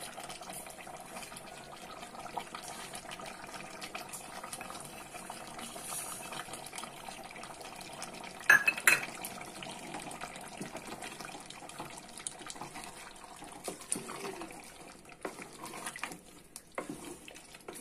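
Thick chicken curry simmering in an aluminium pot, a steady bubbling hiss. A spatula knocks sharply against the pot twice about halfway through, and stirring near the end adds scraping and sloshing.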